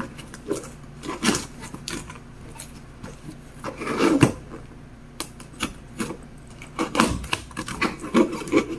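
Scissors cutting the packing tape along a cardboard box's seam: irregular scrapes, snips and cardboard rustles, with louder bursts of scraping about four seconds in and again near the end.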